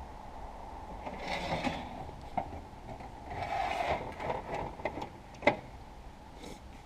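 Desk drawers being slid shut and open: two sliding rasps about two seconds apart, then a few knocks and rattles of the items inside, with one sharp knock near the end.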